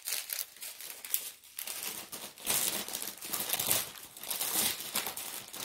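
Thin plastic bags crinkling and crackling in the hands as a small bag of diamond-painting drills is folded up and pushed back into its larger bag. The crinkling is irregular, and it gets louder and denser about two seconds in.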